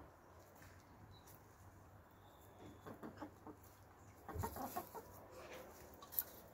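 Hens clucking quietly while pecking in loose soil, with a short run of clucks about four seconds in and a sharp click near the end.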